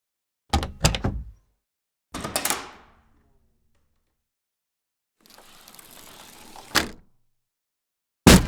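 A string of separate door sounds with silence between them: two quick knocks of a latch and door about half a second in, a short rasping sound that fades out around two seconds in, a longer scraping stretch ending in a sharp thud near seven seconds, and a loud bang at the very end.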